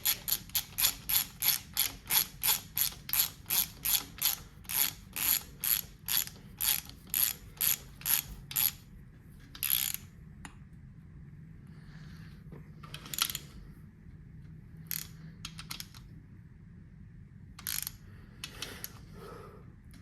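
Hand ratchet with a 10 mm socket clicking as it runs a bolt down on a KA24DE engine, evenly at about two to three clicks a second, then slowing to a few scattered clicks after about nine seconds.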